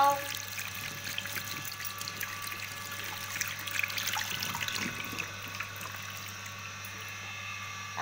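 Tap water running steadily into a washbasin and splashing over a parakeet held under the stream for a bath.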